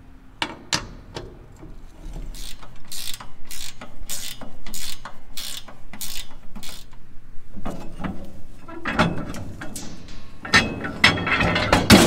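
Hand socket ratchet clicking in steady strokes, about two a second, as a rusty bolt is turned out: the bolt that would not come loose before is now turning.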